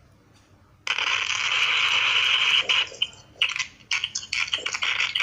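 Loud, steady hissing static like a radio signal, heard through a phone's speaker on a WhatsApp call to an OPPO F3 Plus. It starts about a second in and breaks off briefly a couple of times. The noise, which replaces the speaker's voice, is the sign of a microphone fault in the phone.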